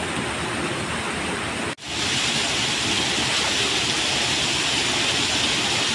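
Steady rush of running water. It cuts out for an instant about two seconds in, then carries on a little louder and brighter.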